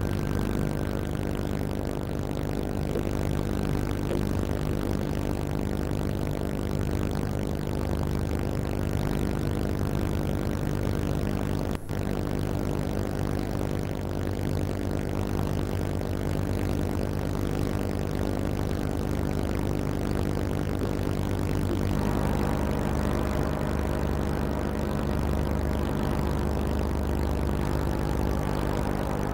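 Boat's heavy diesel engine running steadily, a low even drone. It breaks off for an instant about twelve seconds in and grows slightly fuller near the end.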